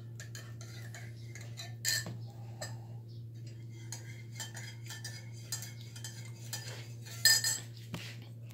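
Metal teaspoon clinking against a ceramic coffee mug as sugar is stirred into the coffee: a run of light clinks, with two louder knocks about two seconds in and near the end.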